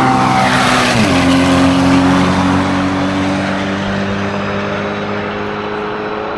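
Competition car's engine running hard at high revs on a hill-climb run, with a sudden step in pitch about a second in, then holding steady while slowly fading.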